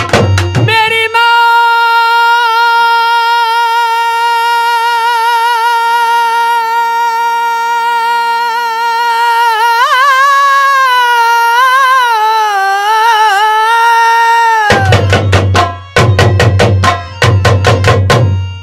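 A Nautanki singer holds one long high sung note with vibrato for about thirteen seconds, wavering and bending in pitch near its end. It is framed by rapid drum strokes at the start and again from near the end.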